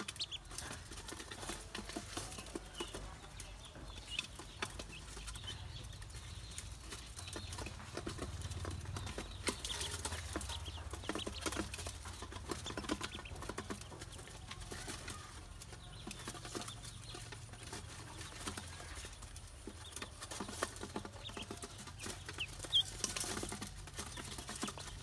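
Ducklings feeding in a metal bowl: quick, irregular taps and clicks of bills pecking grain off the metal and feet shuffling on it, with a few short high peeps.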